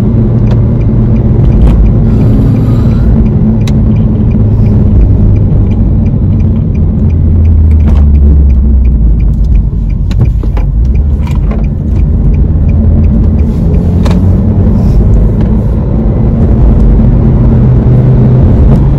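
Car cabin noise while driving: the steady low rumble and hum of the engine and tyres on the road, heard from inside the car, with a few scattered sharp clicks.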